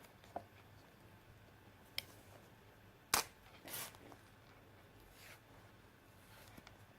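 A few sharp clicks and short rustles of handling close to the microphone. The loudest click comes about three seconds in, with a brief rustle just after it.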